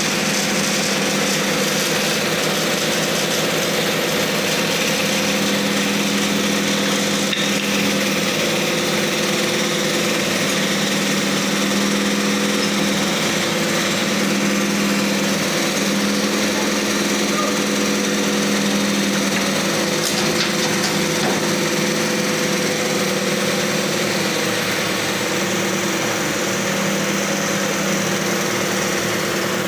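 Crane truck's engine running steadily while the crane works, its pitch shifting slightly now and then.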